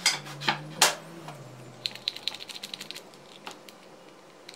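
Loose wooden bench slats knocking against each other as they are pushed into line: three sharp knocks in the first second, then a quick rattling run of light clicks about two seconds in.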